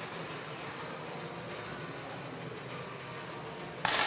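Steady hum of a large indoor shooting hall. Near the end, a single sharp 10 m air rifle shot rings out with a short echoing tail.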